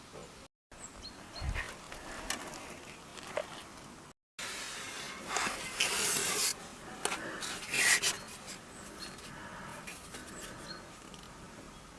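Irregular rubbing and scraping of materials being handled, with scattered sharp clicks and knocks, busiest in the middle; the sound breaks off briefly twice.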